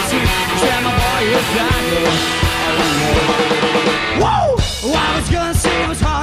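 Rock song with a steady drum-kit beat, instruments and a singing voice.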